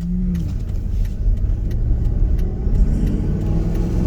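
Car engine and road rumble heard from inside the cabin, getting a little louder about a second in as the car picks up speed.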